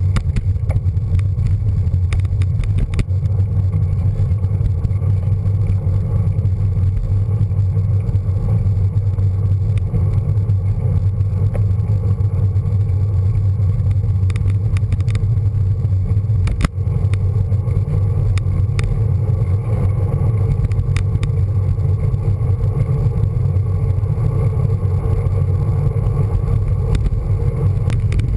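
Steady wind buffeting and road rumble on the microphone of a camera mounted on a moving road bike's handlebars, with scattered small clicks and one sharp knock a little past the middle.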